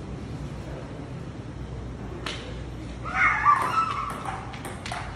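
Ping-pong ball clicking against the hard tile floor a few times, with a brief high-pitched squeal about three seconds in that is the loudest sound.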